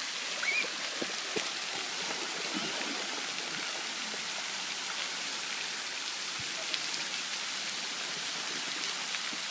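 Fountain jet spraying into a shallow wading pool: a steady hiss of falling water, with a few faint small splashes.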